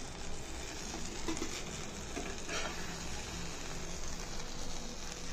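Butter sizzling steadily on a hot nonstick dosa tawa, with a couple of faint scrapes of a steel spatula as the toasted sandwiches are lifted off the pan.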